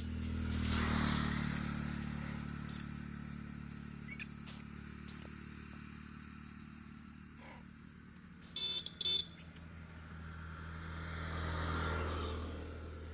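Highway traffic passing: one vehicle's low engine drone swells and fades about a second in, and another rises and passes near the end. Two short, high chirps sound about two-thirds of the way through.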